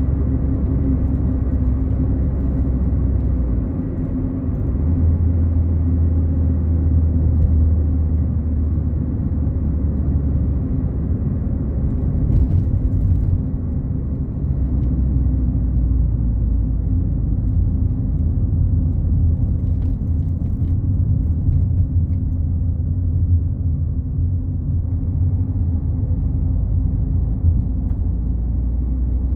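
Fiat Palio Fire driving at highway speed: a steady low engine drone and tyre and road rumble, as heard inside the cabin. The lowest note of the drone shifts a few times.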